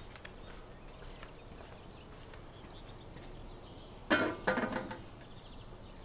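A large metal lid is set onto a cast-iron kazan. It clanks and rings sharply about four seconds in, then knocks again as it settles.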